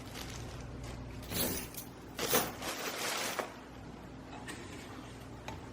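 Rustling and handling sounds, a few brief swishes about a second in and again around two to three seconds in, as unboxed items such as the instruction booklet are moved about.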